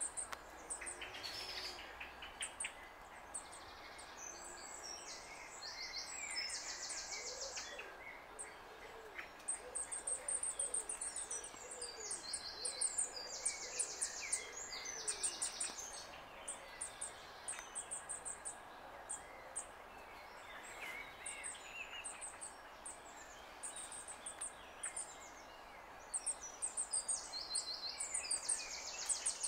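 Goldcrests singing: a stream of very high-pitched squeaky songs, each a run of rapid repeated notes ending in a fast trilled flourish, coming again every few seconds.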